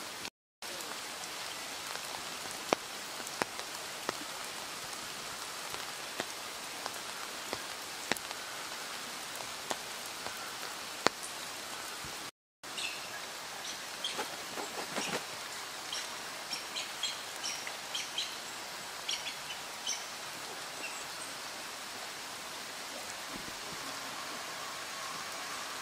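Steady hiss of rain and water, with scattered sharp drips or clicks. In the second half come short, high bird chirps, clustered over several seconds. The sound cuts out briefly twice.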